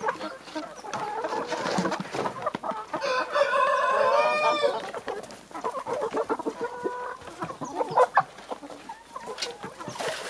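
A flock of Kuroiler chickens clucking, with a rooster crowing once for about two seconds, starting about three seconds in. A couple of sharp knocks come about eight seconds in.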